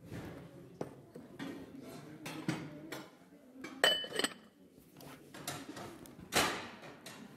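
Porcelain tableware knocking and clinking as pieces are handled and set down, with one ringing china clink about four seconds in and a louder brief noise near the end.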